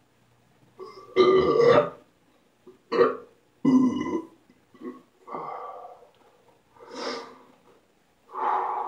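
A man belching loudly over and over, a string of about six or seven separate burps with short pauses between them, the loudest about a second in.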